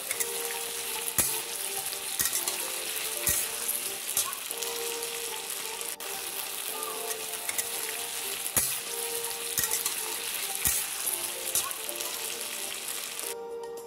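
Diced potatoes frying in hot oil in a steel kadhai, sizzling steadily, with a flat metal spatula clicking and scraping against the pan every second or so in two runs as they are stirred.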